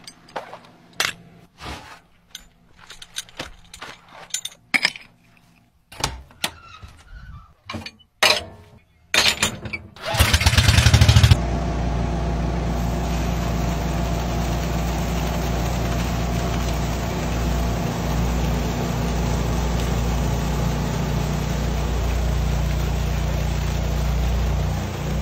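Several seconds of scattered knocks and clunks, then, about ten seconds in, a water truck's pump engine starts with a loud sputtering burst. It settles into a steady hum, with water rushing from the large discharge hose into the pool.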